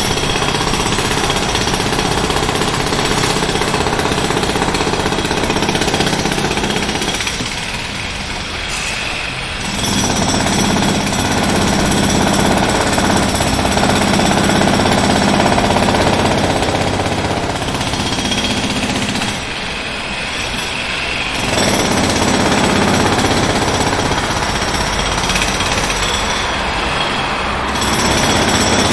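Jackhammer hammering continuously in a rapid, dense rattle. It eases off twice, around eight seconds in and again around twenty seconds in, then comes back to full force.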